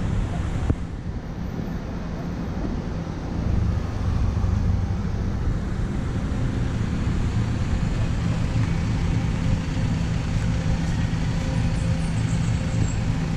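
City street traffic with a bus engine running close by: a steady low hum that grows louder about three and a half seconds in.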